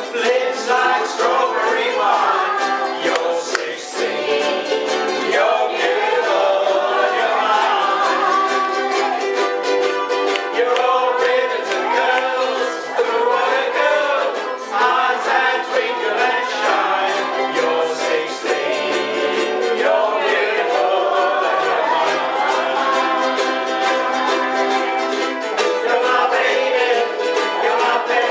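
Live music: ukuleles strummed in a steady rhythm while several voices sing a song together.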